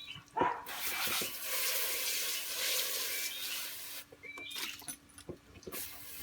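Water being tipped out of an animal's water container, splashing for about three and a half seconds, then a few light knocks.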